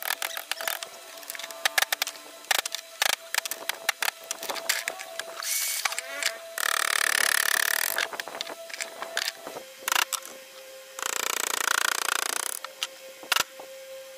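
Hammer striking the wooden handle of a carving chisel, irregular sharp knocks as the chisel cuts into a wooden relief panel. Twice, about seven and eleven seconds in, a louder hissing noise lasts about a second and a half.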